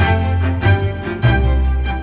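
Background music: a song with bowed strings and a strong bass line, between sung lines.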